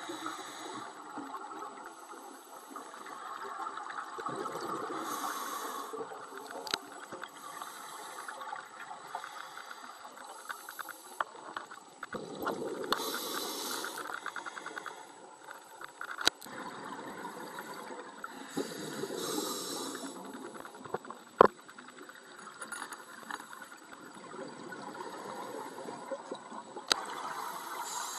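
Scuba diver breathing through a regulator underwater: a hiss on each inhale and a rush of bubbles on each exhale, repeating every few seconds. A few sharp clicks or knocks, one much louder about three-quarters of the way through.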